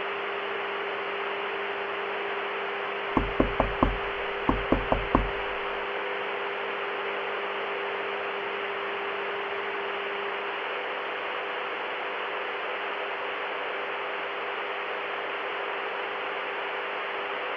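Steady broadcast static hiss with a constant low electrical hum. About three seconds in, knocking on a door comes through in two quick bursts of four or five knocks each.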